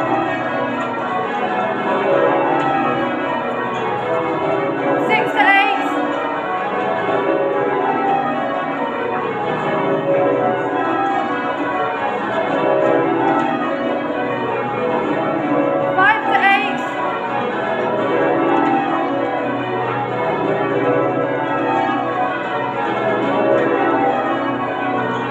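Change ringing on St Mary Redcliffe's ring of twelve church bells: a continuous, even stream of bell strokes, each row running down the scale from treble to tenor, over and over.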